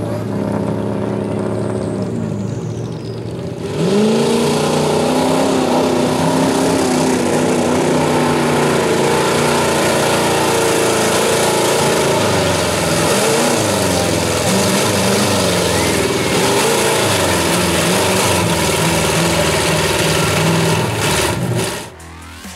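Mud-drag vehicle's engine running, then about four seconds in it goes to full throttle: loud, its pitch rising and falling under a broad rushing noise. It cuts off suddenly near the end.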